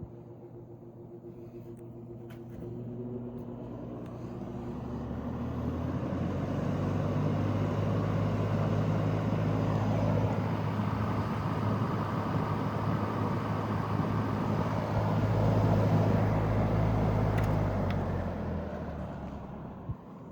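1950s General Electric box fan running: a motor hum under the rush of air from the blades. It builds up over the first several seconds, holds steady, then dies away near the end, with a single click just before it stops.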